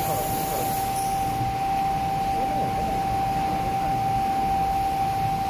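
Steady industrial machinery noise: a continuous hum with a constant single-pitched whine above it, unchanging throughout.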